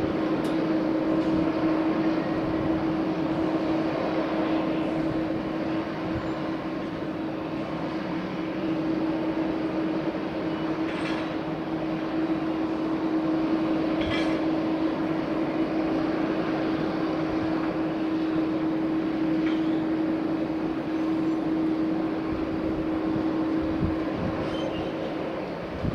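Jet airliner engines running steadily, a constant droning hum with one held tone and no rise in pitch.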